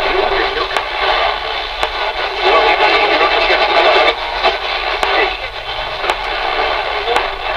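Channel Master 6506 six-transistor AM radio playing a station through its small speaker, a voice on a narrow, tinny band. Sharp clicks come every second or so over the audio: the interference the owner hears on weaker stations and has not yet traced to its source in the house.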